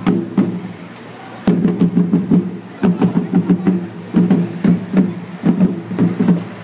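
Marching band music from a street parade: regular drum strikes over sustained low instrument notes, dropping out briefly about a second in before starting again.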